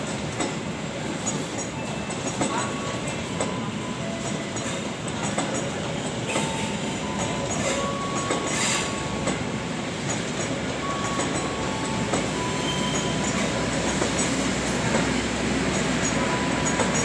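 Passenger train cars rolling past on the rails, a steady rumble of wheels and running gear, with short high-pitched wheel squeals breaking in again and again.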